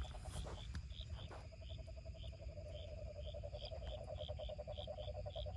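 Chorus of calling insects: a steady, fast-pulsing low trill with short high chirps repeating two or three times a second.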